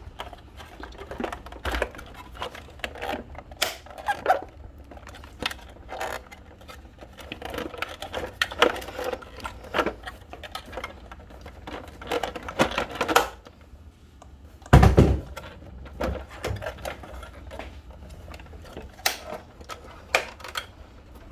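Irregular clicks, knocks and clatter of plastic and metal parts being handled and pulled apart while a water ionizer machine is taken to pieces. One heavy thump about fifteen seconds in.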